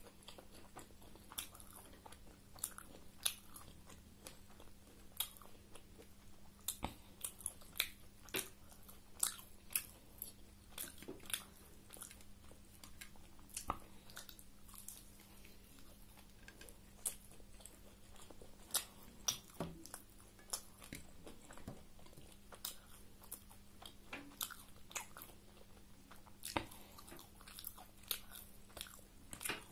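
Close-up mouth sounds of someone chewing and biting a homemade egg roll: small sharp clicks and smacks at an uneven pace, over a faint steady hum.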